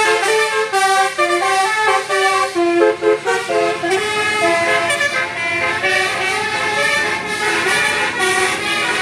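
Bus telolet Basuri musical horn playing a tune: a run of horn notes stepping up and down in pitch, several tones sounding together, without a break.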